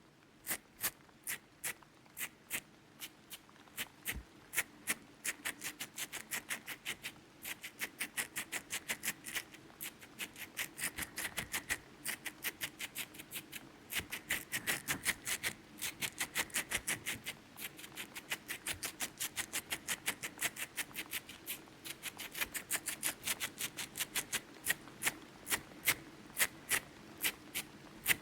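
Ear-picking tool scratching and gripping close at a microphone's ear: a steady run of crisp clicks, a few a second at first and coming faster through the middle.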